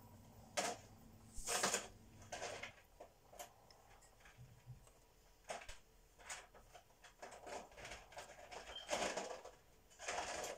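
Kitchen handling sounds: a plastic bottle poured into a bowl and ingredients worked on a countertop, heard as scattered short rustles and clatters at irregular times. A faint low hum stops about three seconds in.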